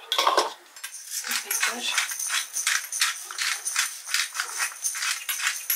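Pepper being dispensed from a spice container over chopped potatoes in quick rattling strokes, about four a second, after a brief clatter at the start.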